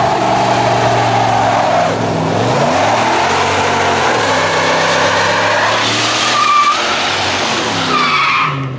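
Pickup truck doing a burnout: the engine is held at high revs, dipping and climbing again a couple of seconds in, over the continuous hiss of spinning rear tyres, with tyre squeals near the end.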